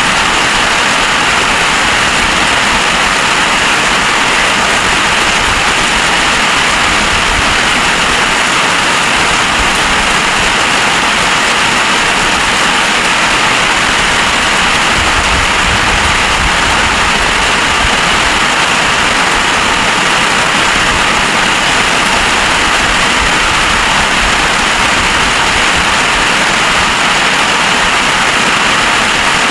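Heavy rain falling steadily in a storm, a loud, unbroken hiss of downpour.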